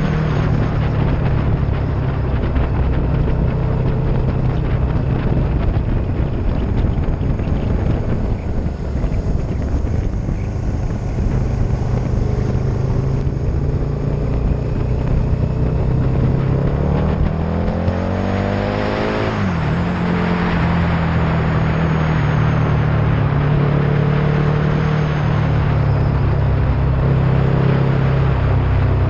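Vehicle engine running steadily at road speed, with road and wind noise. About 19 seconds in, a rising engine note drops off abruptly in a rush of noise as traffic goes by.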